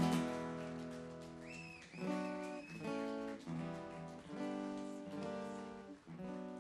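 Acoustic guitar strumming a few chords, about one a second, each left to ring and fade.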